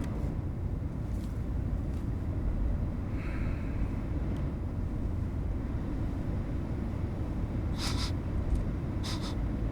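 Steady low road rumble inside a moving car's cabin. Near the end come two short, sharp sniffs, a second or so apart.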